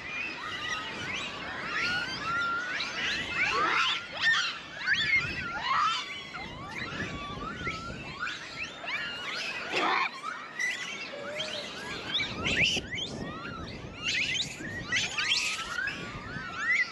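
Many Japanese macaques calling at once: short, high calls that rise and fall, overlapping throughout, with a few louder moments.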